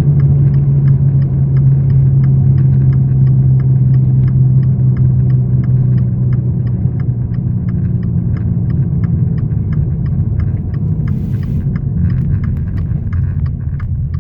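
A steady low hum with a regular light ticking rattle over it, a few ticks a second; the hum eases off in the second half while the ticking goes on. This is the humming and rattling noise whose cause is unknown.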